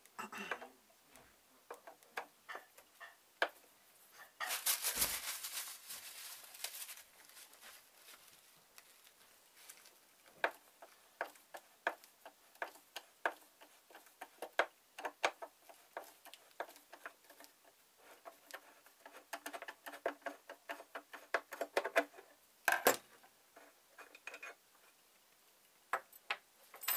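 Screwdriver working screws out of a metal mounting yoke, with metal parts being handled: a run of small clicks and ticks, and a louder scraping stretch about five seconds in.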